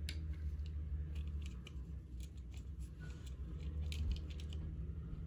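Light scattered clicks of plastic toy parts being handled, as the yellow arm of a small toy excavator is moved by hand, over a low steady rumble.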